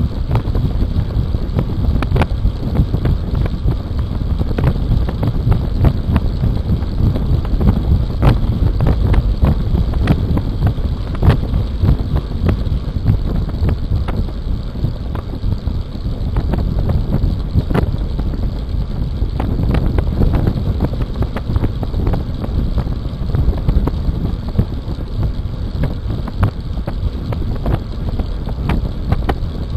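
Wind buffeting the microphone of a bike-mounted camera on a road bike travelling at about 36–39 km/h, a loud rumble that rises and falls, with road noise and scattered sharp clicks and knocks.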